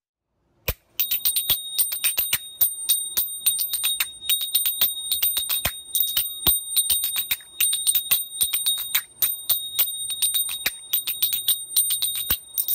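Finger cymbals (zills), a pair on each hand, struck together in a rapid rhythmic pattern starting about a second in, several strikes a second, with a high bell-like ring carrying on between the strikes.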